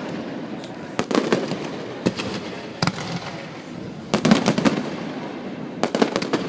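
Fireworks going off: sharp bangs, some single and some in quick clusters, with crackling between them.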